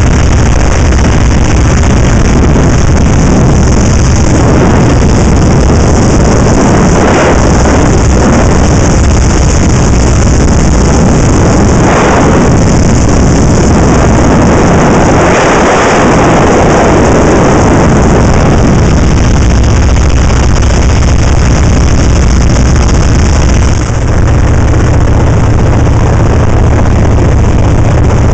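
1940 Waco biplane in flight, heard from the open cockpit: the steady, loud drone of its radial engine and propeller under a constant rush of wind. The wind swells a few times, about 7, 12 and 16 seconds in.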